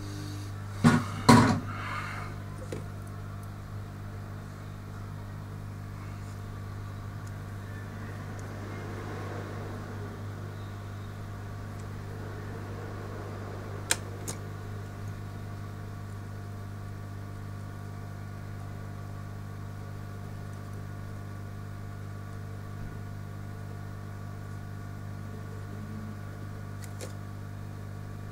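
A steady electrical hum from workbench equipment, pitched low, with a few sharp clicks about a second in and again midway.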